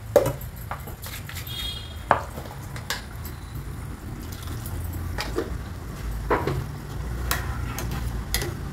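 A metal ladle stirring a pot of bean curry, with about seven short, sharp clinks of steel on steel from the ladle and vessels. A low steady hum runs underneath.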